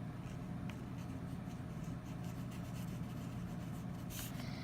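Highlighter pen drawing on paper, with faint scratchy strokes over a steady low hum and a brief louder swish about four seconds in.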